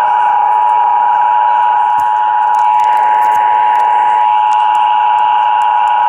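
Emergency Alert System attention signal: the steady two-tone alarm, two pitches of about 853 and 960 Hz sounding together, played through a Sangean HD portable radio's speaker as a station begins an EAS test.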